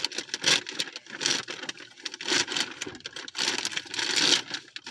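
A bag crinkling and tearing in irregular bursts as it is pulled open by hand, without a knife.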